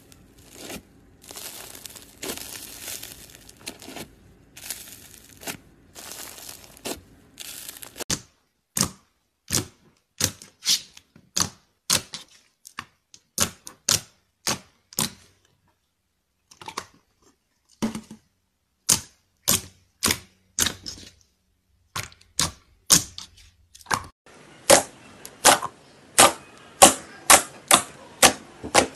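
Foam-bead slime crackling and crunching in short bursts as a plastic potato masher presses into it, then, from about eight seconds in, sharp pops of air pockets bursting as fingers press and poke glossy slime, the pops coming faster and louder near the end.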